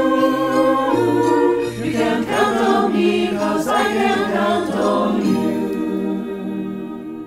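Mixed-voice choir singing, with some sliding notes, then settling on held notes that fade away over the last couple of seconds.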